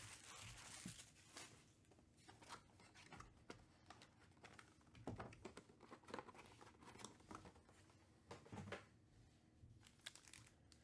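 Faint crinkling and tearing of plastic wrap and cardboard as a Topps Chrome Black trading-card hobby box is unwrapped and opened by hand, with scattered soft rustles and clicks.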